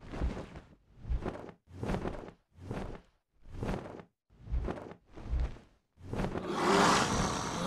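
Dragon sound effect: wings flapping in swishing beats with a low thud on each, seven beats a little under a second apart, then a long growling roar from about six seconds in, the loudest part.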